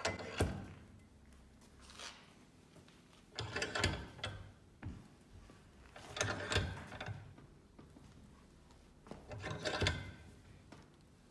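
Bench vise being cranked shut on a 50cc scooter's steel exhaust pipe, crushing the open stub left by the removed restrictor to close the hole. It comes as four scraping bursts about three seconds apart, one for each pull of the vise handle.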